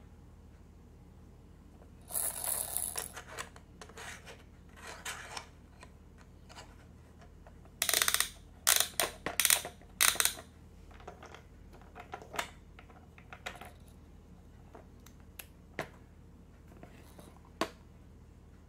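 A plastic Winfun duck baby laptop toy being handled: its buttons click and rattle in short bursts, loudest about eight to ten seconds in. A single sharp click comes near the end as the lid is snapped shut.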